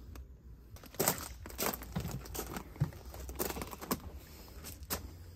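Fingers and a microfibre towel rubbing and pressing over wet paint protection film, working the slip solution out from under it: a run of irregular rustling, crinkling scrapes starting about a second in.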